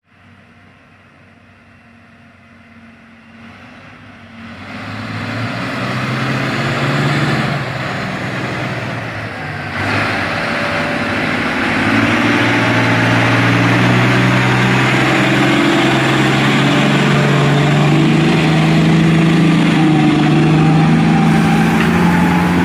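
Komatsu HD785 mining dump truck's V12 diesel engine, faint at first and growing loud as the truck comes up close, then running loud and steady under load, with a fainter whine rising slowly in pitch near the end.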